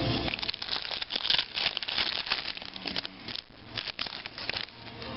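Trading-card pack wrappers crinkling and cards rustling as they are handled, with scattered small clicks.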